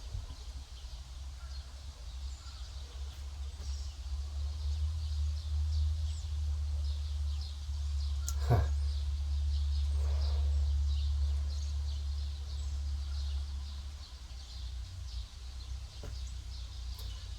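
Steady low rumble with small birds chirping. About eight and a half seconds in, one short falling whoosh.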